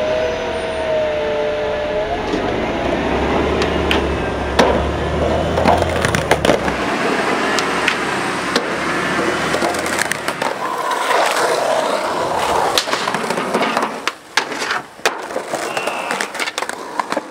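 Skateboard wheels rolling on concrete, with repeated sharp clacks from the tail popping and the board landing during street tricks.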